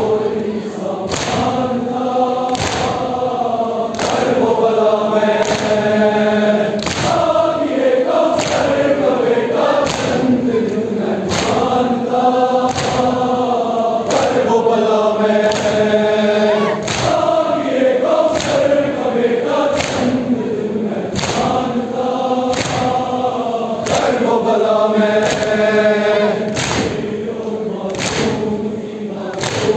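Large crowd of men chanting a noha (Muharram lament) together, with the even thump of hands striking chests in matam about once a second.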